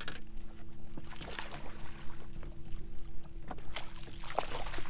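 Water splashing as a hooked largemouth bass thrashes at the surface beside the boat, in two bursts, the second near the end. A steady low hum runs underneath.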